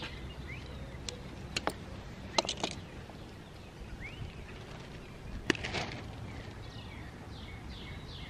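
Sharp clicks and taps of pliers and small metal parts as a chainsaw magneto's capacitor lead is worked loose: a few about one and a half to two and a half seconds in, and a louder click about five and a half seconds in followed by a brief rustle. Birds chirp faintly in the background.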